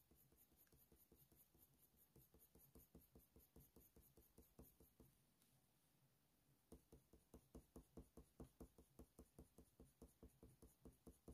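Very faint scratching of a Faber-Castell Polychromos coloured pencil on hot-press watercolour paper: short, regular shading strokes at about four a second, a little plainer in the second half.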